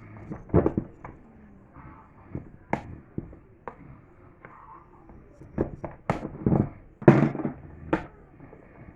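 Irregular knocks, clicks and clatter of hard objects being handled and set down, busiest about six to eight seconds in.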